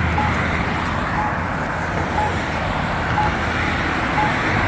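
Accessible pedestrian signal pushbutton (Campbell Guardian APS) sounding its locator tone: a short beep about once a second. Steady road traffic runs underneath and is the louder sound.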